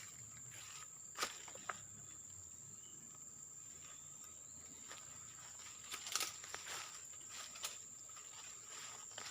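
Faint outdoor ambience with a steady high-pitched insect drone, broken by a few soft clicks and taps about a second in, around six seconds in and near eight seconds.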